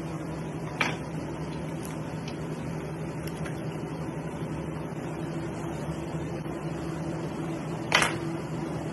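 A steady mechanical hum of kitchen machinery, like a ventilation fan, with a sharp knock about a second in. A louder knock comes near the end as a chef's knife is set down on the plastic cutting board.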